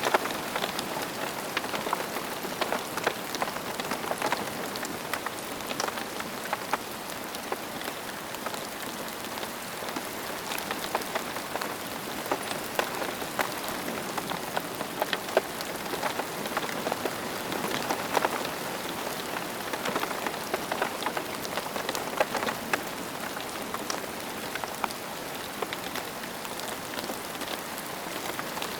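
Steady rain falling on a surface, a constant hiss with many close individual drops ticking and splashing.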